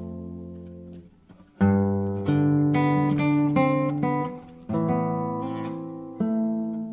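Solo acoustic guitar music, fingerpicked. A chord rings and fades away, then after a short gap new chords and single notes are plucked, with further chords struck twice near the end.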